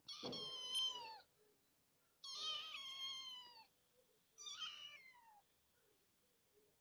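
Kitten meowing three times, high-pitched calls that sink a little in pitch at their ends, the middle one the longest.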